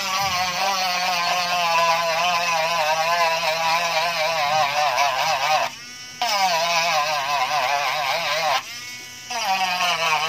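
Small handheld rotary tool grinding off the frayed carbon-fibre edge of a carbon-skinned panel. Its motor buzz wavers in pitch as the bit bites into the edge. It runs in three stretches, stopping briefly about six and about nine seconds in.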